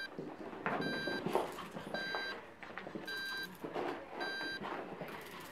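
Electronic beeper sounding a short, high beep about once a second, four times in a row, with scuffling noises between the beeps.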